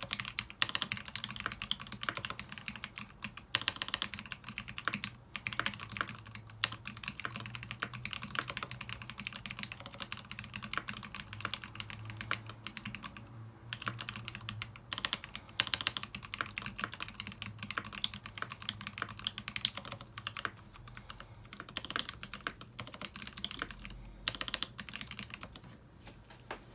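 Steady typing on a TX87 SE mechanical keyboard with lubed Zealios V2 tactile switches on a brass plate: a fast, continuous stream of keystroke clacks with a brief pause about halfway through.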